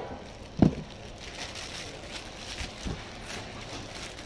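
Handling of a peeled pineapple and clear plastic produce bags: a dull thump about half a second in, a softer knock near the three-second mark, and light crinkling of plastic.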